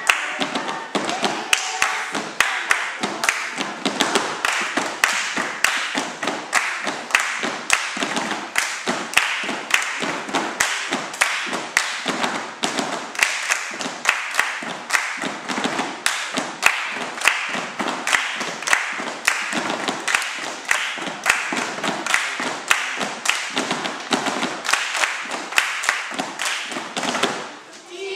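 A group of children doing body percussion in unison: hand claps and slaps on the body keeping a steady rhythm, about two to three strikes a second. The strikes fade out briefly near the end.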